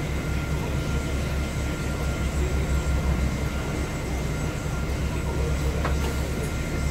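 NovaBUS LFS city bus idling at a stop, heard from inside the cabin: a steady low engine drone with a thin, steady whine above it.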